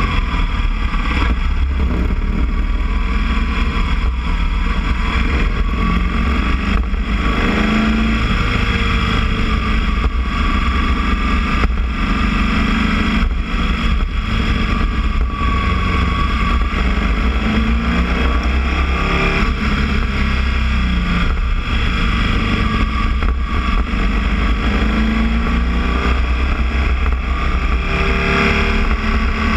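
Boxer-twin motorcycle engine running steadily on the move, its pitch rising and falling gently with the throttle over a constant deep rumble.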